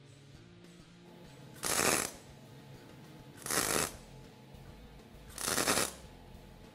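Three MIG spot welds from an Eastwood MIG welder. Each is a burst of arc noise about half a second long, and they come about two seconds apart. They are struck with too little shielding gas, the fault that leaves raised craters with no penetration.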